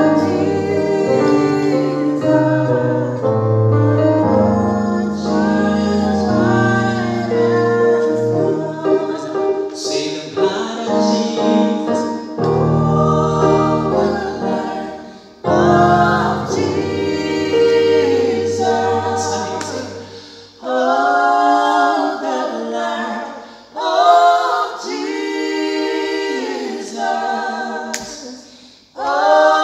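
A man singing a gospel hymn over his own electronic keyboard accompaniment. About twenty seconds in, the keyboard stops and he carries on singing alone in short phrases.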